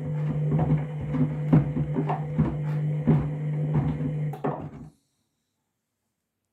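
Candy washing machine running a trainers wash cycle: a steady motor hum with trainers knocking against the tumbling drum about three times a second. The sound cuts off abruptly about five seconds in.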